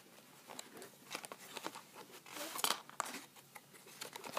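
Monster High doll box packaging, cardboard and plastic, crinkling and rustling in irregular crackles as it is handled and pulled at by hand, loudest a little past halfway.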